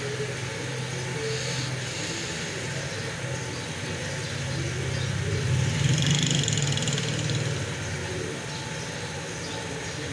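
Steady mechanical hum with an even whooshing noise over it, growing louder for a couple of seconds midway.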